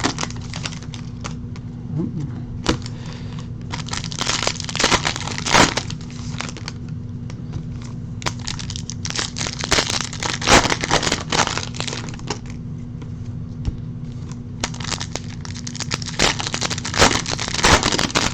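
Trading card packaging being torn open and crinkled in three separate spells of crackling, with a steady low hum underneath.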